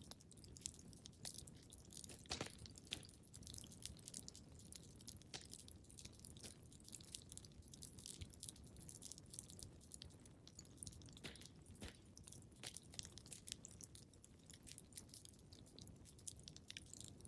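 Faint crackling of a wood fire in a fireplace: irregular sharp pops and snaps over a steady low noise.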